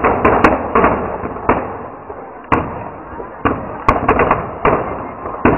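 Firecrackers going off in the fire at the foot of Dussehra effigies: about ten sharp bangs at irregular intervals, some in quick runs, with crackling in between.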